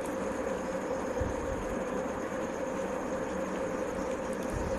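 Steady mechanical hum with a constant mid-pitched tone, running evenly throughout. Two soft low thumps come through it, about a second in and again near the end.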